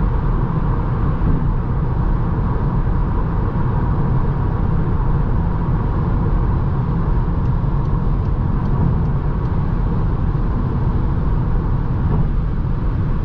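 Steady tyre and wind noise inside the cabin of a 2020 Seat Leon FR cruising at motorway speed, a low, even rumble with no change throughout.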